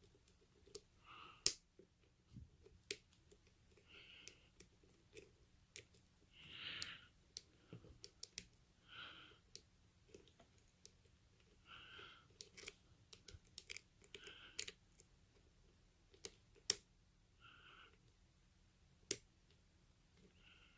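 Lock picking on a five-pin Brinks 642 padlock: faint, scattered sharp clicks from the pick and tension wrench working the pins in the keyway, with short soft rasps every couple of seconds.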